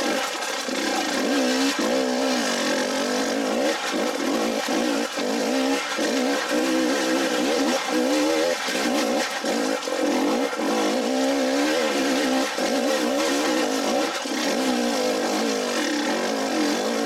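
Dirt bike engine under load on a steep, rocky climb, revving up and down with the throttle. Its pitch rises and falls every second or so, with frequent brief dips.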